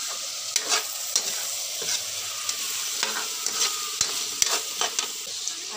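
Chicken pieces sizzling in oil in a wok while a metal spoon stirs them, scraping and tapping against the pan about a dozen times over the steady sizzle.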